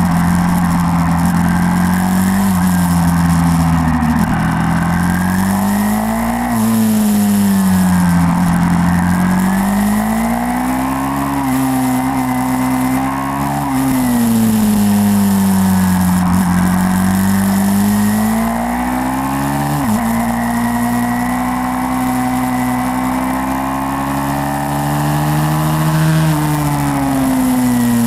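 YCF 150 SM pit bike's single-cylinder four-stroke engine running hard, its pitch rising and falling again and again as the throttle is opened and closed.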